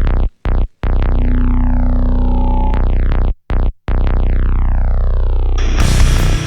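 Music: a droning synthesizer intro whose tone sweeps downward again and again, broken by a few short silent cuts, then a heavy metal band with distorted guitars and drums comes in near the end.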